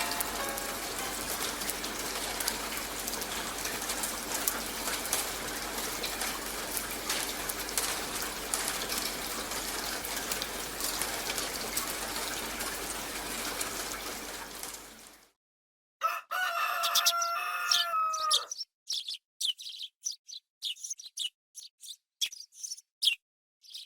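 A steady hiss with scattered ticks cuts off suddenly. After a second of silence a rooster crows once, a long call that falls at the end. Short scattered chirps and clicks follow.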